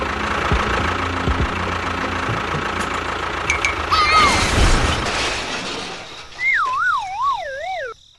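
Steady engine-like running noise. About four seconds in comes a short whistle, then a wavering siren-like tone that rises and falls about twice a second and sinks in pitch before it cuts off.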